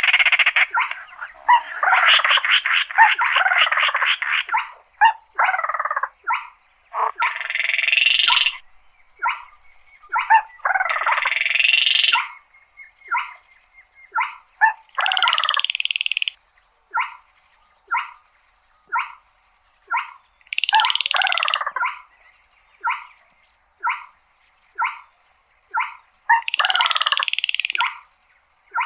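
Baillon's crake calling: dry rattling trills and longer buzzy bursts, with short clipped notes about once a second in between.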